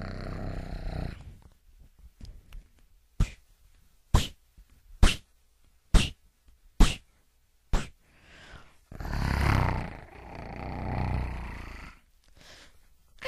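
A short growl fades out, then six sharp gunshot sound effects about a second apart. After them comes a long, deep dinosaur roar in two swells for the T-Rex.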